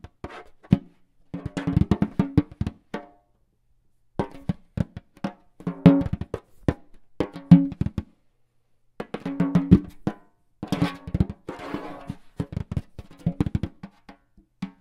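Percussion music: quick clusters of drum and woodblock-like strikes, broken twice by silent pauses about a second long.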